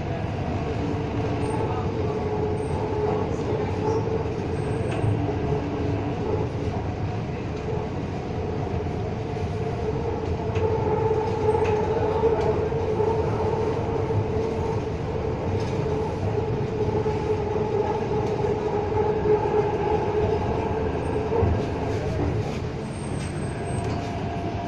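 Metro train running, heard from inside the carriage: a steady rumble of the wheels on the track with a held hum. It grows a little quieter near the end as the train slows into the station.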